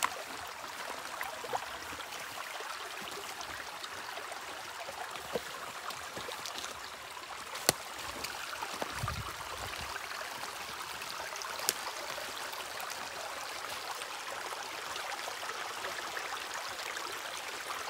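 Small woodland creek running over stones and leaves: a steady rush of water. Two sharp clicks stand out, one about eight seconds in and one near twelve seconds, and a brief low thump comes around nine seconds.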